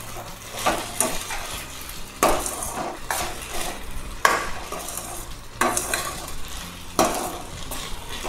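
A metal spatula stirring sliced okra in a stainless steel pot: about six scrapes against the pot a second or so apart, over a light sizzle of the frying okra.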